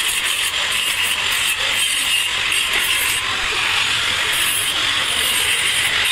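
Electric angle grinder with an abrasive disc grinding the welded joints of a steel square-tube frame: a loud, steady, high-pitched grinding noise that runs without a break.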